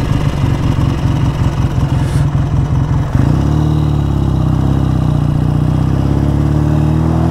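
BSA A10 650 Super Rocket's parallel-twin engine running under way, uneven for the first three seconds, then pulling steadily with a slowly rising pitch. The carburettor has just been adjusted to cure lumpy running and backfiring, and the engine is still not running perfectly.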